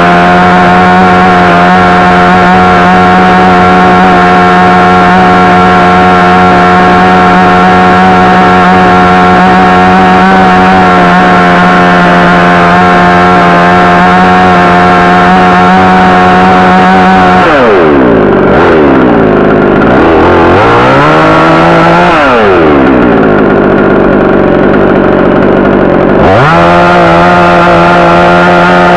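62cc two-stroke chainsaw running at high revs, cutting into a carob branch. After about 17 seconds the engine note twice drops sharply and climbs back, then runs steady again.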